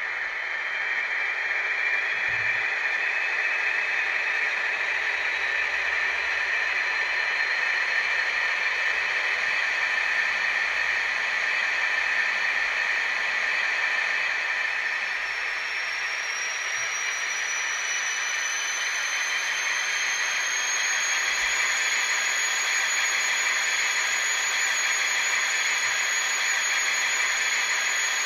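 DCC sound decoder in an N gauge Dapol Class 56 model, playing a Class 56 diesel engine running through two small speakers. The engine sound is steady, with a faint whine rising slowly at first and a higher whine that climbs in pitch past the middle and then holds.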